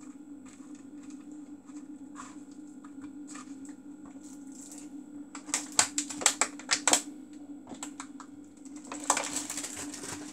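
Kitchen handling sounds over a steady low hum: a run of sharp clicks and taps about halfway through, then a burst of crinkling as a clear plastic bag is handled near the end.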